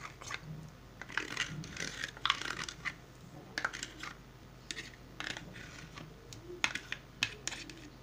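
A spoon scraping and tapping against a container, irregular clicks and scratches as soft fresh cheese is worked into flour.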